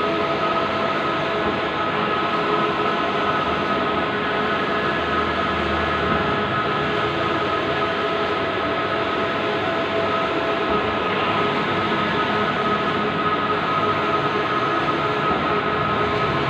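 Bluewin outdoor large-format banner printer running: a steady mechanical whir with a few high, steady whines over a dense hum.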